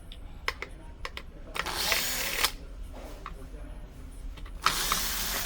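Hand screwdriver working the small screws that hold a smart door lock's motor: scattered light clicks and two rasping scrapes of about a second each, one about two seconds in and one near the end.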